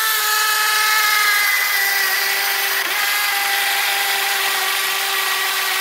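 Cordless drill running steadily with a 1/4-inch titanium bit, boring through a shopping cart's handle. A steady motor whine whose pitch sags a little in the first couple of seconds as the bit takes load, then holds.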